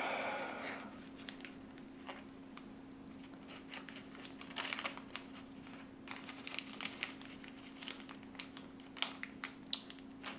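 Thin plastic sample bag crinkling and rustling in the hands in short, scattered crackles as a test strip is worked into it, over a faint steady hum.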